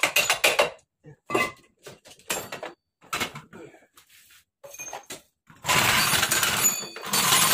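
Metal clicks and clanks from wrench work on a Honda EX5's engine, then about two seconds of loud scraping and clattering near the end as the engine is worked free of the frame.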